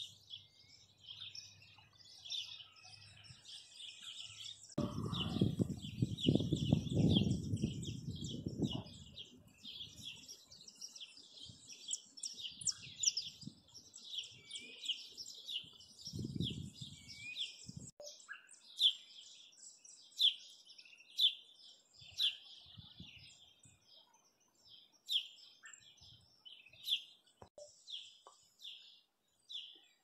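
Many songbirds chirping and singing in quick, repeated high notes throughout. A louder low rumble comes in about five seconds in and lasts some four seconds, with a shorter one later.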